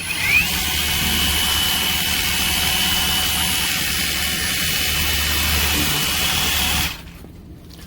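Cordless battery pressure washer spraying. Its pump motor whines up to speed as the trigger is pulled, then runs steadily under the hiss of the water jet, and cuts off suddenly about seven seconds in.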